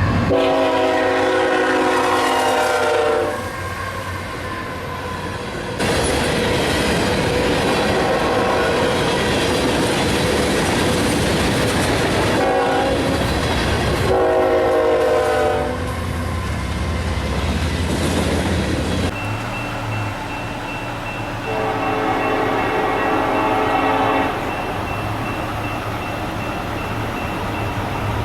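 Locomotive horns sounding several times, each blast a chord of several steady notes, with the rumble and wheel clatter of passing trains between blasts. The sound changes abruptly twice, where one train's recording gives way to another's.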